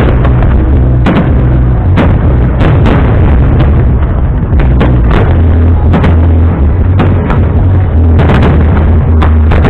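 Aerial fireworks bursting in quick succession, loud sharp bangs one to three a second over a continuous deep rumble.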